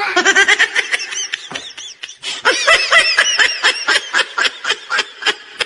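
High-pitched laughter in quick repeated bursts.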